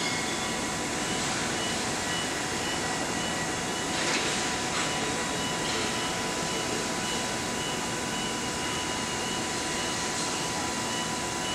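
Steady machinery hum of a steel-coil slitting line, with a few thin steady whining tones over it and a brief hiss about four seconds in.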